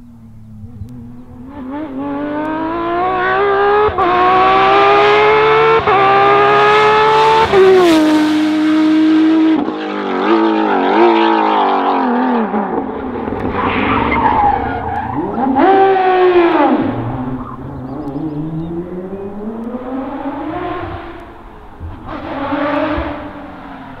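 Porsche 997 GT3 rally car's naturally aspirated flat-six engine at full throttle, climbing in pitch through several quick upshifts, then braking with blipped downshifts into a bend and accelerating away again, fainter near the end as it drives off.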